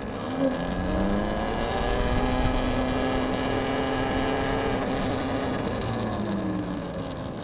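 Talaria XXX electric dirt bike's motor whining as it speeds up, holding a steady pitch, then falling in pitch near the end as the bike slows, with a low road rumble underneath.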